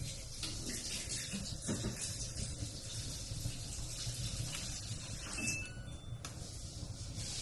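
Wood fire burning in a wood stove: a steady hiss with a few scattered crackles and pops.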